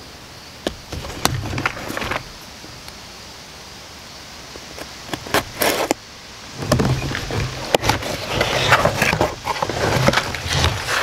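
A few sharp clicks as a folding pocket knife is handled, a short scrape about five and a half seconds in as the knife cuts the seal of a cardboard shipping box, then cardboard flaps and a printed card insert rustling and crackling as the box is opened.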